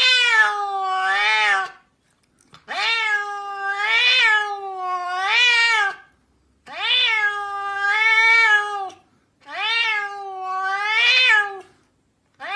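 Grey-and-white Scottish Fold cat meowing in a run of long, drawn-out calls, each two to three seconds long with the pitch wavering up and down. Short pauses separate the calls, and a new one starts right at the end.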